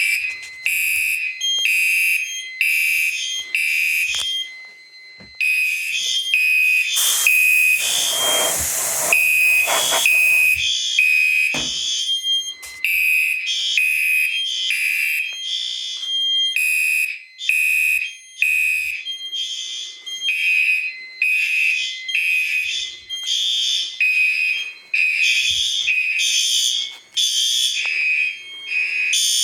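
Several fire alarm horns sounding together in pulsed patterns, their high pulsing tones overlapping out of step. About seven seconds in, a harsher rasping blast joins for about three seconds.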